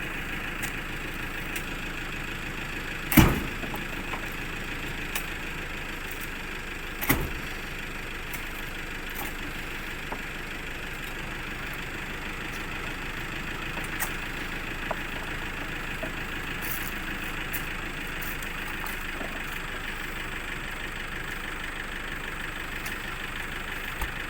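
Vehicle engine idling steadily, with two heavy thuds about four seconds apart and a few light knocks.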